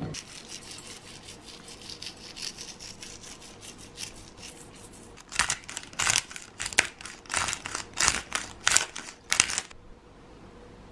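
Hands tossing diced raw zucchini in a glass bowl make a soft, crackly rustle as the pieces click against each other and the bowl. Then, as black pepper is added, about a dozen louder crisp, gritty strokes come, roughly two a second, and stop about a second before the end.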